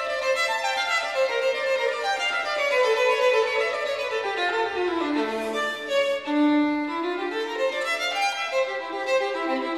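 Background music: a solo violin playing a melody of held notes that steps down in pitch and then climbs back up.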